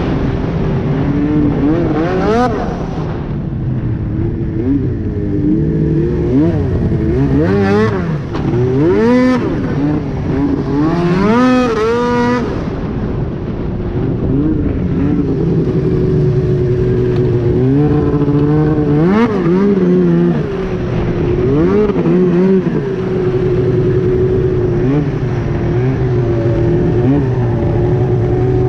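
Arctic Cat Crossfire 1000R snowmobile's two-stroke twin through a loud aftermarket GGB exhaust can, running under way with the throttle opened and eased off again and again. It gives several quick revs that rise and fall, the longest about a third of the way in, between stretches of steady cruising.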